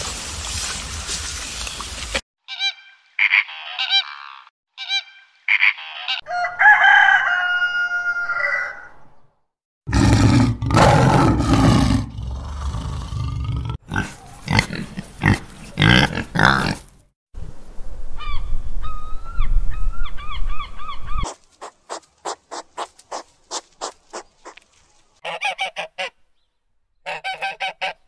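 A run of separate animal sounds, one after another. First come several short pitched bird calls. Then pigs grunt and squeal loudly for several seconds. After that come more wavering calls and rapid short sounds, ending in quick bursts of mallard duck quacking.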